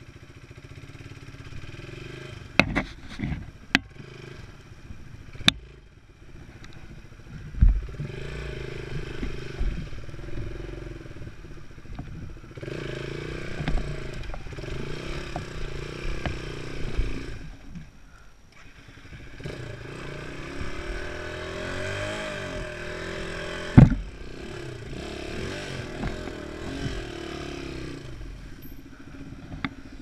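A Racer enduro motorcycle's single-cylinder engine running as it rides a rough, rutted dirt track. The engine note rises and falls with the throttle and eases off briefly about two thirds through. Sharp knocks and clatter come from the bike jolting over bumps, the loudest a hard knock late on.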